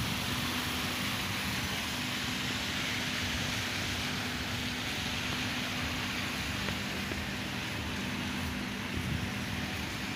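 A steady mechanical hum under a steady hiss, with no voices; the hum drops out for a moment about six seconds in.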